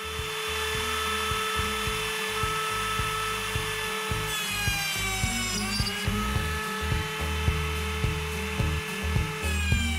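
Cordless trim router running in a shop-made dowel-joiner jig, a steady high whine whose pitch sags and recovers about halfway through and again near the end, as when the bit is loaded while boring dowel holes.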